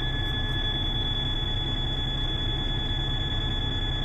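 A DAF XF95's dashboard warning buzzer holding one continuous high tone over the low, steady run of the truck's six-cylinder diesel at idle, heard inside the cab. The buzzer sounds with the red STOP lamp lit for low air pressure and a brake-system warning, after moisture froze in the air lines.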